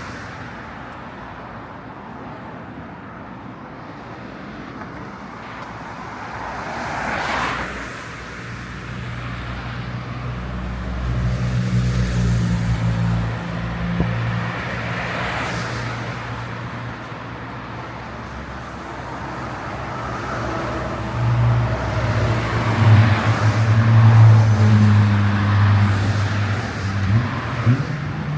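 Street traffic: cars passing by, with the low steady hum of engines running close by for two long stretches.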